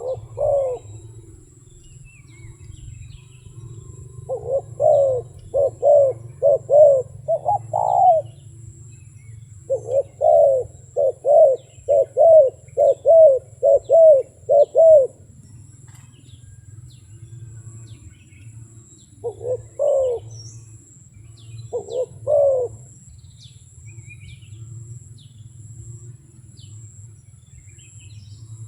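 Wild dove cooing in quick runs of short rising-and-falling notes, one long run after another, then a couple of short calls near the end, over a steady low hum.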